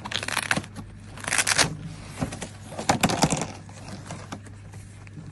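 Handling noise from unboxing a camera flash: the padded fabric pouch and the box's packaging rustle and scrape as the flash is pulled from its tray. The rustling comes in three spells, at the start, about a second and a half in, and about three seconds in.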